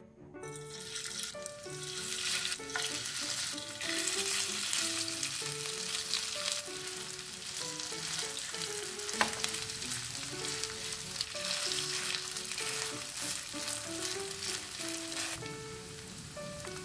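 Cabbage and ground pork batter sizzling in hot oil in a four-hole frying pan as spoonfuls go in and are pressed flat. There is one sharp click about nine seconds in, and the sizzle eases near the end.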